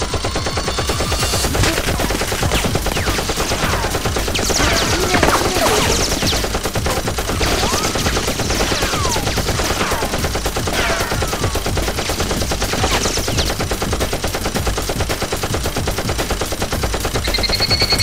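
Dubbed-in automatic gunfire sound effects: a continuous rapid stream of shots, with several falling whistles laid over it.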